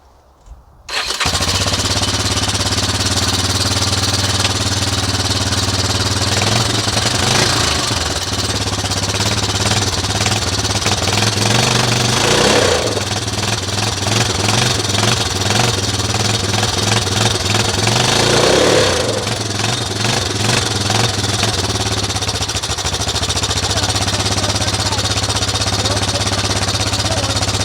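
ATV engine starting and running steadily. It revs up a couple of times as the ATV takes up the tow strap to drag a heavy furnace.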